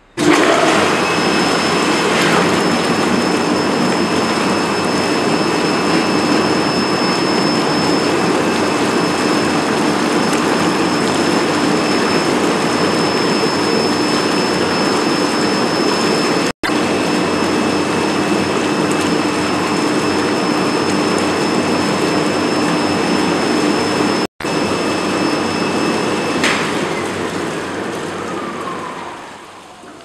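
Water churning and bubbling hard in the stainless-steel tank of a meat defrosting and washing machine, over a steady motor whine. It starts abruptly; near the end the whine stops and the churning dies away.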